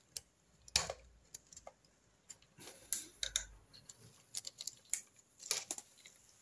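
Scattered light clicks and ticks at irregular moments as a steel circlip is worked onto the layshaft of a Triumph Trident T160 five-speed gearbox and into its groove.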